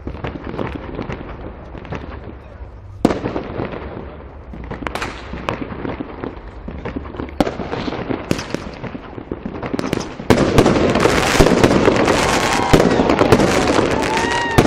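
Fireworks going off: a string of sharp bangs with crackling, growing much denser and louder about ten seconds in.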